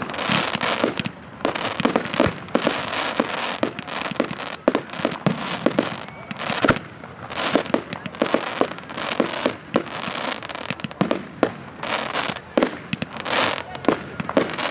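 Fireworks going off in rapid succession: many sharp bangs a second, overlapping with continuous crackling, with no pauses.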